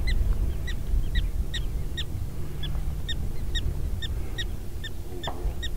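Prairie dog alarm calling: a steady series of short, high chirps, about two to three a second.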